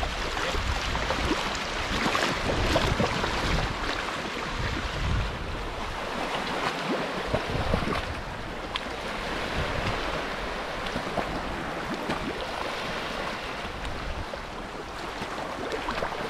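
Ocean waves washing and splashing in the shallows, a continuous rushing noise that swells and eases, with wind rumbling on the microphone.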